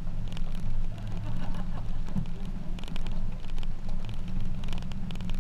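Pickup truck driving along a dirt road, heard from its open cargo bed: a steady low engine and road rumble with scattered small clicks and rattles.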